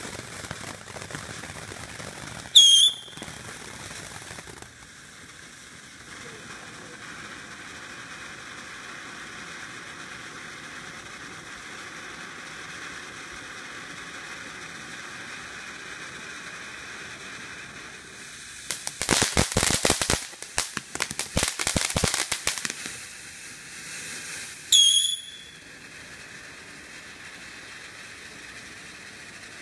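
Ground fireworks fountain spraying sparks with a steady hiss. Two sharp, loud bangs stand out, one about three seconds in and one near the end, and a burst of rapid crackling runs for about four seconds past the middle.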